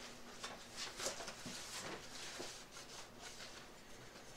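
Faint rustling and light scraping: hands handling a small object, with a few soft strokes scattered through.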